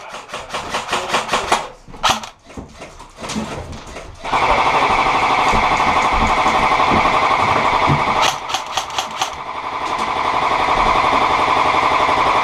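Airsoft electric rifles firing in a small wooden room. First comes a fast run of separate shots, then from about four seconds in a steady, loud, rattling buzz of sustained full-auto fire. It breaks into single shots for about a second around eight seconds in, then picks up again.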